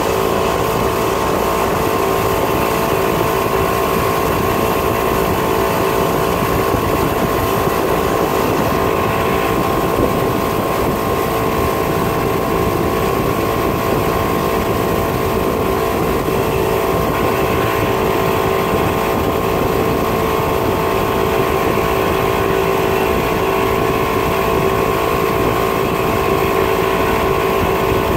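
Mercury outboard motor running steadily at towing speed, its pitch holding level throughout.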